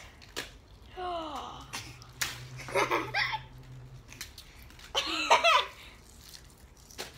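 Children laughing and giggling in three short bursts.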